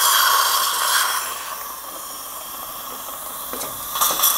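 Dental surgical suction hissing and slurping in the mouth while the socket is rinsed of tooth fragments. It is loud at first, drops to a quieter hiss after about a second and a half, and swells again near the end.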